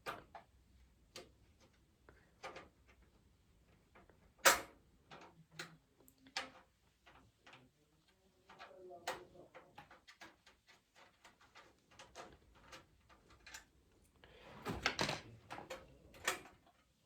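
Irregular small clicks, taps and knocks of a screwdriver and metal PC case parts being handled, with one sharp clack about four and a half seconds in and a busy run of knocks and rattles near the end.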